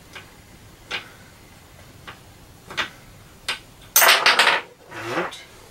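Light metallic clicks and knocks from parts and hand tools being handled on a mini milling machine, about one every second, then a loud quick clatter of several metal strikes about four seconds in.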